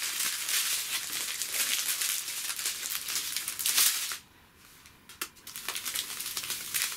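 Small plastic bags of diamond-painting drills crinkling as they are handled, stopping about four seconds in; after that, a few light clicks and softer crinkles.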